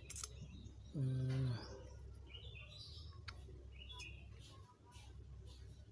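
Small birds chirping in the background. About a second in, a man gives a short, steady, low hum of effort. Near the middle a couple of small clicks come from the metal carburetor part being handled.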